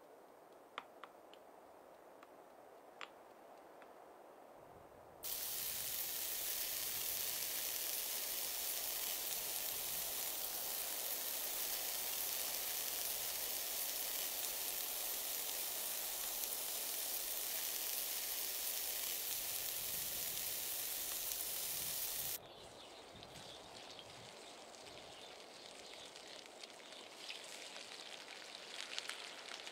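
Butter sizzling steadily in a hot cast-iron grill pan, starting suddenly about five seconds in and stopping suddenly about two-thirds of the way through. Before it come a couple of faint clicks of a stone pestle in a mortar. Near the end, a quieter frying hiss with crackling as raw chicken pieces go into the hot fat.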